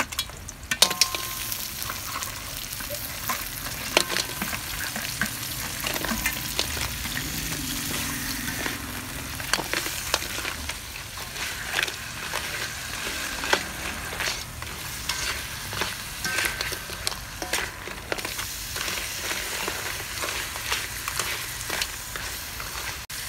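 Cut mud crab pieces sizzling as they are stir-fried in hot oil and garlic in a metal wok, with a steady hiss. A spatula scrapes and clacks against the wok and the crab shells, the loudest knocks about a second in and about four seconds in.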